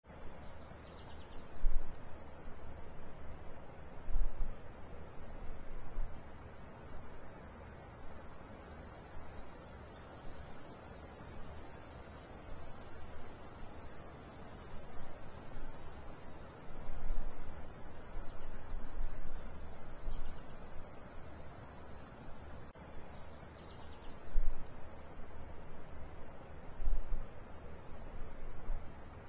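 Insects chirping: a steady high-pitched drone with a quick, even pulse of chirps running through it. A few low thumps stand out now and then.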